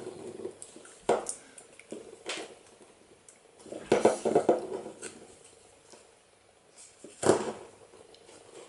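Small clicks, taps and scrapes of hard plastic as a tube-shaped action camera is handled and its parts are pressed together in a tight fit. A few separate knocks and rubs, busiest about four seconds in.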